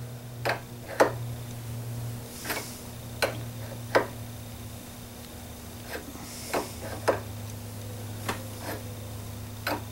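Open-end wrench clicking against a brass compression nut as it is repeatedly re-seated and turned to tighten the nut onto copper tubing: about a dozen sharp clicks at uneven spacing, over a steady low hum.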